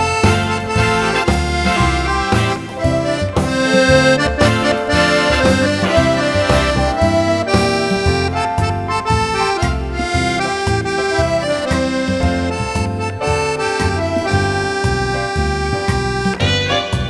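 Accordion playing a melody over a steady, rhythmic bass accompaniment.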